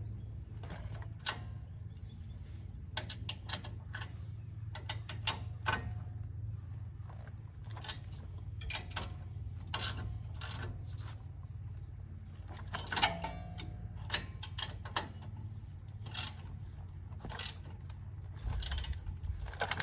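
Hand tools and metal parts clicking and clinking at irregular intervals during work on a Jeep rear axle hub, over a steady low hum. There is a louder cluster of clicks about two-thirds of the way through.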